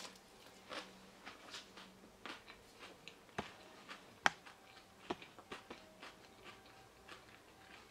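Faint, scattered small clicks and light rustles, with one sharper click about four seconds in.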